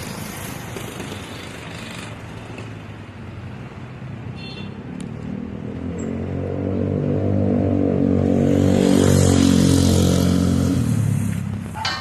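A motor vehicle engine passing close by: it grows louder from about halfway through, is loudest for a few seconds, then fades near the end.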